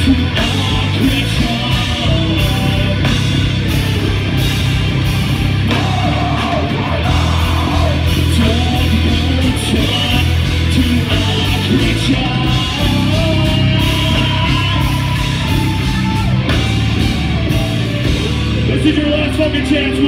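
Live heavy metal band playing loud: electric guitars, bass guitar and drums, with a vocalist singing and yelling into a microphone.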